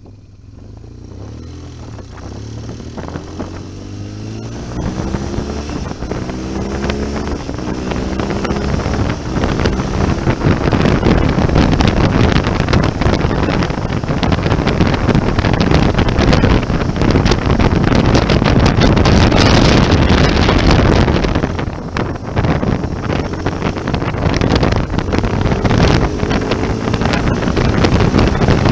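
BMW motorcycle engine pulling away from low speed, its pitch climbing in steps as it shifts up through the gears. It then runs steadily at speed under heavy wind rush on the microphone, eases off briefly about three-quarters of the way through, and picks up again near the end.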